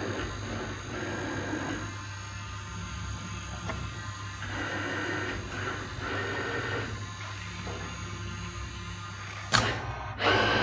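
PU gasket pouring machine running: a steady hum with a varying whirr that rises and falls as the gantry carries the dispensing head along the boxes, and a short, louder hiss near the end.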